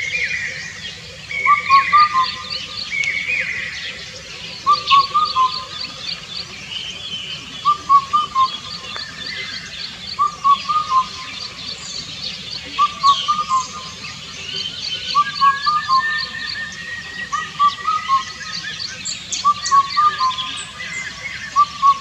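Indian cuckoo singing its loud four-note hooting song, the phrase repeated about eleven times, coming faster toward the end, over high chirps from other birds.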